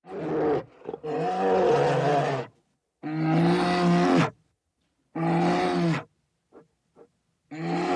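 Big cat roaring: five deep roars in a row, each a second or so long with short pauses between, the later ones shorter, with a few faint short grunts between the last two.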